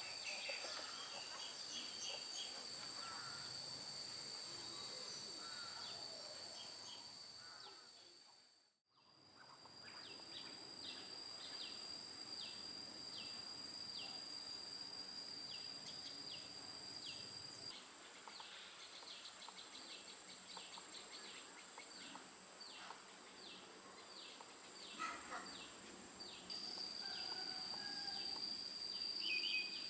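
Insects trilling steadily at a high pitch, with faint short chirps repeating about once or twice a second. The sound fades out and back in about nine seconds in.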